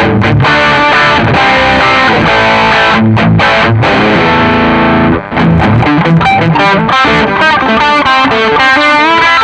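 Electric guitar played with distortion through a Nux MG-400 multi-effects unit. Partway through, the second footswitch brings in a digital delay, adding echo repeats to the held notes near the end.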